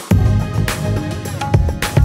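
Background music with heavy bass and a steady drum beat; the bass comes in just as it starts.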